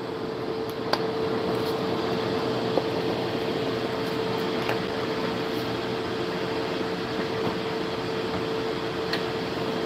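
Air fryer running: a steady fan whir with a constant hum running through it, and a few faint clicks.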